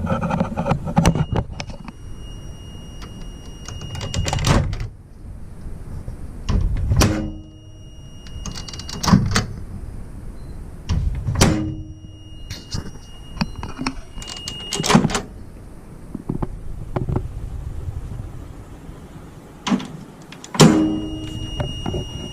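A multimeter's continuity beeper sounds a steady high beep three times, each for about two seconds, while a microwave oven's door (limit) switches are tested, with sharp clicks and knocks from the switches and door between the beeps. The test shows the lowest of the three switches to be intermittent.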